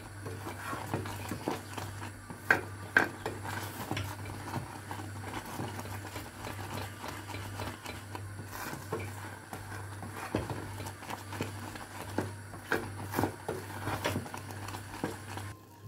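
Wooden spoon stirring and scraping thick, nearly finished palkova (milk reduced down to a paste) in a saucepan, with irregular knocks and clicks of the spoon against the pan.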